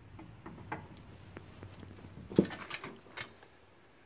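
Hydraulic floor jack being let down, lowering a lawn tractor onto its foam-filled rear tire: scattered light clicks and knocks, with one sharper knock about two and a half seconds in.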